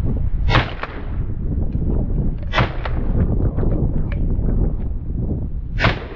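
Three 12-gauge shotgun shots, about two and then three seconds apart, sounding dulled and short. Heavy wind rumbles on the microphone underneath.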